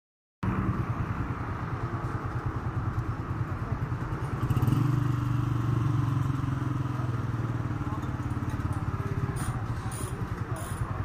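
Honda 125 motorcycle's single-cylinder four-stroke engine running at low revs close by, with a fast, even exhaust beat. The beat gets louder and stronger briefly about four and a half seconds in.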